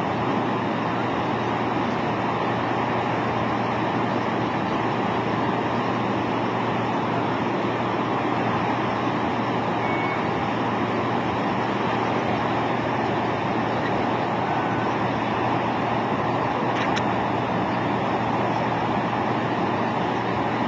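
A vehicle running: a steady, even rushing noise over a constant low hum, with no change in level.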